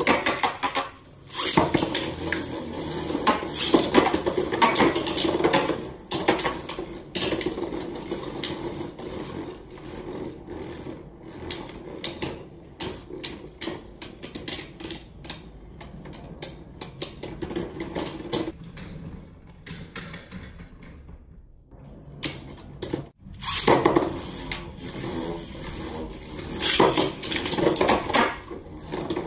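Three Beyblade Burst spinning tops whirring and clattering in a clear plastic stadium, with rapid sharp clashes as they strike each other and the stadium wall. The clatter thins out a little past the middle and turns loud again near the end.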